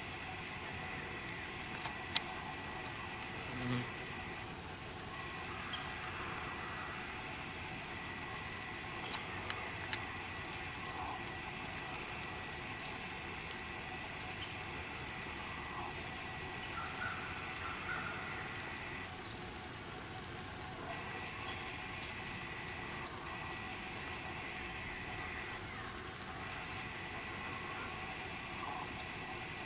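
A steady, high-pitched insect chorus, with a second, lower insect trill that stops and starts again several times.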